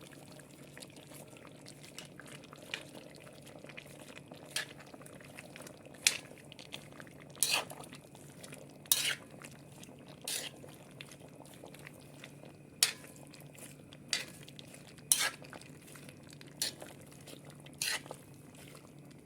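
A utensil stirring plov ingredients in a cooking pot, scraping and knocking against the pot in short, sharp clatters roughly once a second, over a steady low background.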